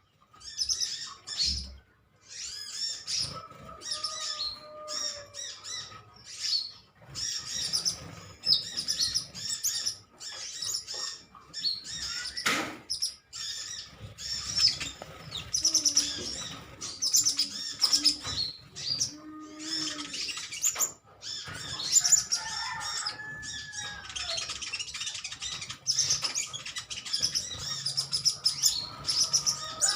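A group of olive-backed sunbirds chattering and competing: rapid, overlapping strings of high, thin chirps and twitters with short gaps between bouts.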